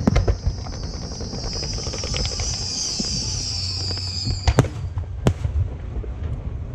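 Aerial fireworks going off: a dense crackling hiss that stops about four and a half seconds in, with sharp bangs at the start and a few more just after the crackle ends.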